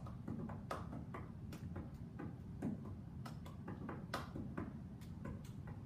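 A child clapping her hands in a steady beat, about two claps a second, over a low room hum.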